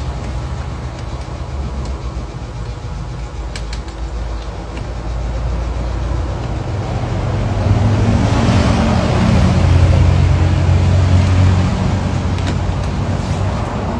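A motor vehicle passing by: a low engine rumble under steady background traffic noise that builds from about halfway through, is loudest a little after that, and fades near the end. A few faint clicks sit on top.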